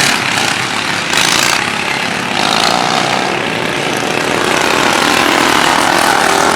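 Several racing lawn mower engines running hard as the mowers go past, with a brief louder surge about a second in.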